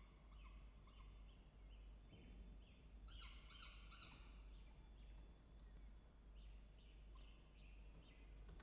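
Faint bird calls: runs of short, rapidly repeated notes, loudest about three seconds in and again near the end, over a low steady hum.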